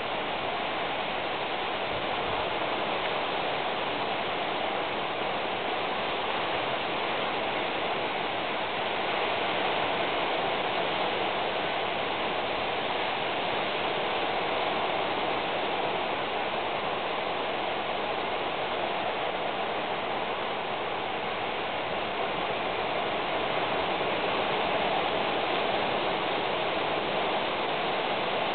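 Steady, even hiss with no separate events, a little louder from about nine seconds in.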